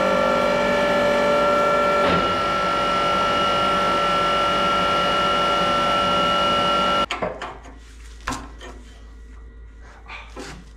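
Electric-motor-driven hydraulic pump of a homemade log splitter running with a steady whine, while its pressure gauge reads about 115 bar on the pump side of the valve. A click about two seconds in, after which the whine's tones shift slightly. The whine stops abruptly about seven seconds in, followed by faint clicks and knocks of handling around the valve.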